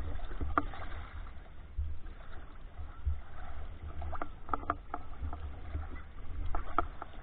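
Sea water sloshing and swirling around a camera held at the water's surface while swimming, heard as an uneven low rumble. There are a few short clicks and taps, one about half a second in and small clusters in the second half.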